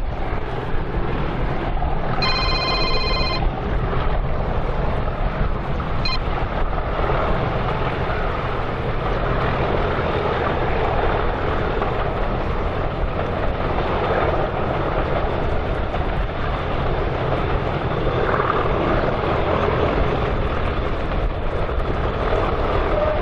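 Two Class 97/3 diesel locomotives, rebuilt Class 37s with English Electric engines, roaring on a steady climb, mixed with wind buffeting the microphone. A brief high-pitched tone sounds for about a second, about two seconds in.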